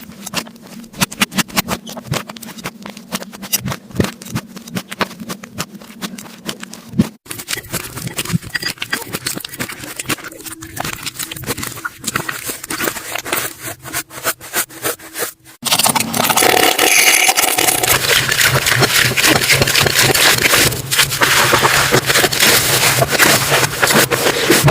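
Slime being squished and stretched by hand: a dense run of wet clicks, pops and crackles. It changes abruptly twice, about seven seconds in and again about fifteen seconds in, and after the second change it is much louder and fuller.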